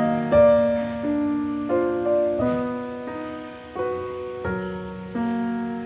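Background piano music: a new note or chord struck every second or so, each left to ring and fade.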